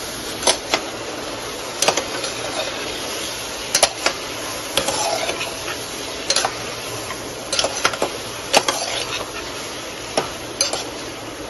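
A slotted metal spoon stirring potatoes in a thick masala in a pressure cooker pot, with irregular sharp clicks and scrapes as it knocks against the pot, over a steady sizzle from the cooking.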